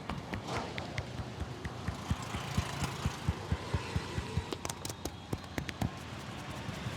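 Massage tapping: a barber's hands striking a client's body in a steady run of dull thuds, about three a second, with a few sharper clicks near the fifth second and stopping about six seconds in. Street traffic runs underneath.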